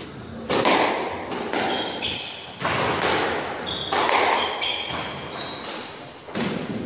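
Squash rally: the ball struck by rackets and hitting the court walls about once a second, each hit echoing in the court, with short high squeaks of players' shoes on the wooden floor.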